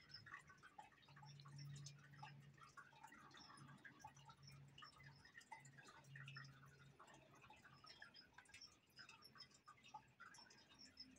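Near silence: room tone with faint, scattered small ticks and a faint low hum.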